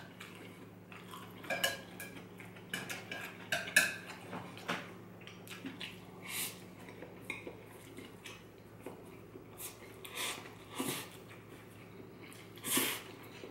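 Wooden chopsticks clicking and scraping against a glass bowl and a ceramic plate while picking up fried instant noodles, many sharp clicks in the first few seconds. Later, a few longer hissy sounds of noodles being eaten straight from the bowl.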